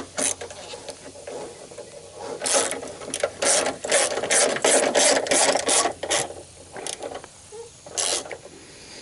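Hand ratchet wrench clicking in short back-strokes, a quick run of about three a second through the middle, as it tightens the two small 13 mm bolts of the battery cross brace.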